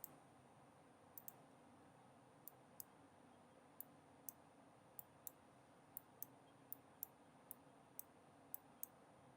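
Faint computer mouse button clicks: a string of single sharp clicks, coming faster, about two a second, in the second half, as objects are selected one by one.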